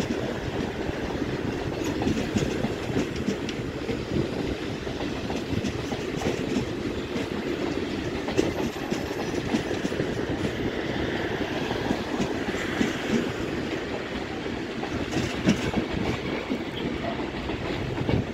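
Regional passenger train running out of the station, its coaches rolling past below with the wheels clacking irregularly over rail joints and points.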